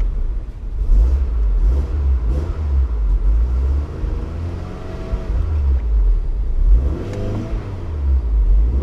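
1991 Toyota Celica GT's four-cylinder engine revving up and back down twice as the car is driven, over a heavy low rumble.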